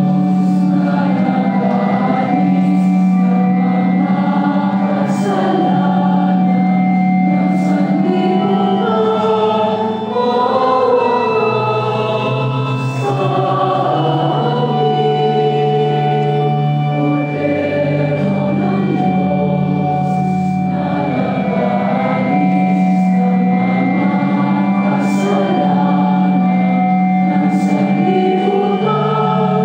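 Church choir singing a slow hymn with keyboard accompaniment holding long low notes.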